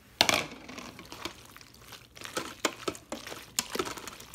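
Shrimp tipped from a bowl into a stainless steel Instant Pot insert of penne in creamy sauce, a loud wet dump just after the start. Then a spoon stirring the sauced pasta, with irregular clicks against the metal pot.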